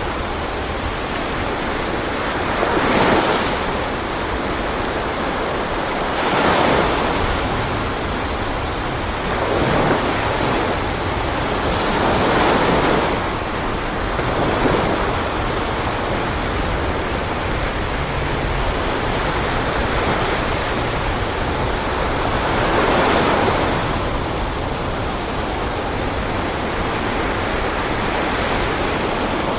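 Ocean waves washing in a steady rush, swelling louder every few seconds as each wave breaks.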